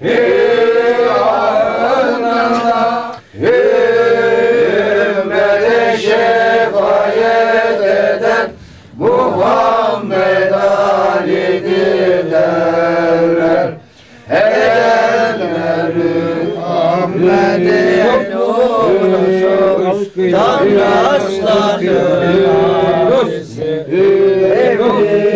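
Men's voices chanting a Sufi devotional hymn in long melodic phrases, each broken off by a short pause for breath.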